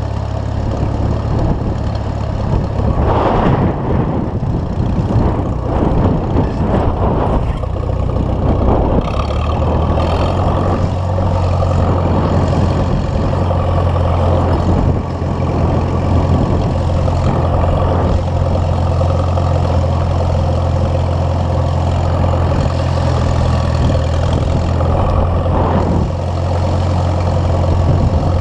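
Case 730 tractor engine running at a steady speed under load while it pulls a two-bottom moldboard plow through the soil.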